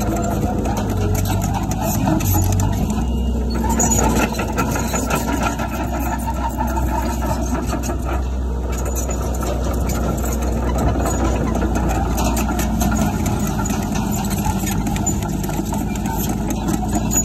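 Heavy earthmoving machinery: a diesel engine running steadily, with frequent clicks and rattles over it.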